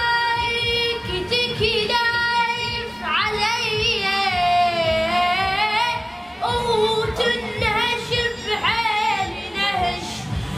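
A high voice sings an Arabic song in long, wavering held notes that slide between pitches, over a steady percussion beat.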